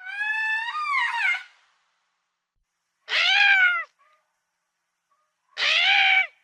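Lemur calling: three high, drawn-out calls with silence between them. The first lasts about a second and a half and wavers in pitch; the second and third, about three and five and a half seconds in, are shorter and each rises and falls slightly.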